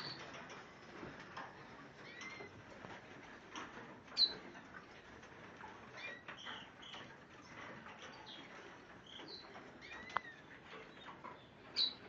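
Caged canaries and finches calling with scattered short chirps and tweets, and wings fluttering as birds fly about inside the cages. A few sharper calls stand out louder, about four seconds in and near the end.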